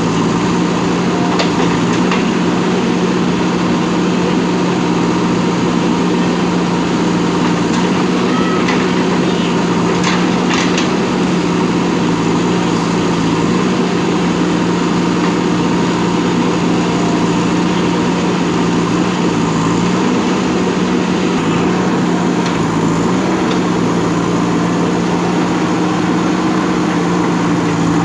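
JCB backhoe loader's diesel engine running steadily under working load, its pitch shifting slightly a little after two-thirds of the way in. A few short clanks sound over it near the start and around a third of the way in.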